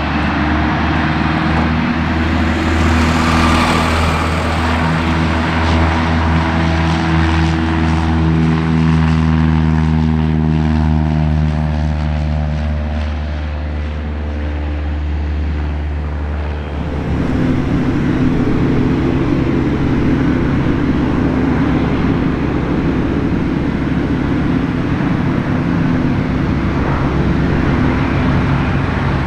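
Cessna 172S Skyhawk SP's four-cylinder Lycoming engine and propeller at full power on the takeoff roll, its pitch falling steadily as the plane goes past and lifts off. About seventeen seconds in the sound cuts to a second Cessna 172S approaching to land, its engine and propeller running at a steady pitch.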